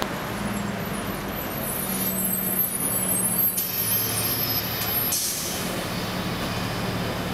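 Night street traffic with a heavy vehicle's engine running steadily. A thin high whine is followed, a little after five seconds in, by a short hiss of air brakes.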